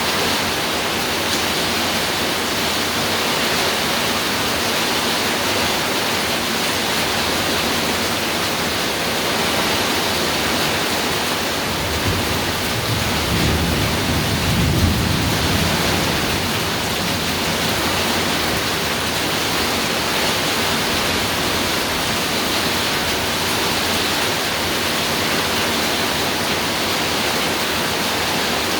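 Steady heavy rain falling on a roof. About halfway through, a low rumble of thunder swells and fades.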